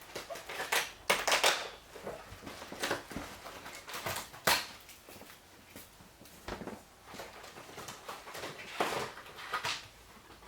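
Box and packaging being handled: irregular rustling with scattered clicks and knocks, one sharp click about four and a half seconds in.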